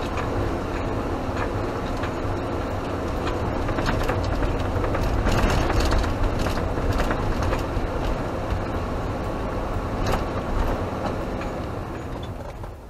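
Camper van driving on a narrow, rough road, heard from inside the cab: a steady engine and tyre rumble with scattered rattles and knocks. It grows quieter near the end.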